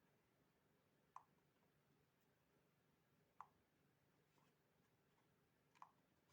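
Near silence: faint room tone with three short, faint clicks, about a second, three and a half seconds and nearly six seconds in.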